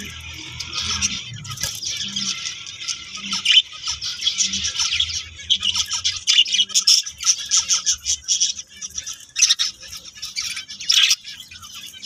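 Budgerigars chattering: a continuous stream of quick, high-pitched chirps and warbles, with a few sharper, louder calls around the middle and near the end.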